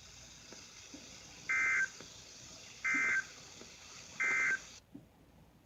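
Emergency Alert System end-of-message signal: three short bursts of the screeching two-tone SAME digital data code, each about a third of a second long and about 1.4 s apart. The broadcast hiss cuts off suddenly just after the third burst.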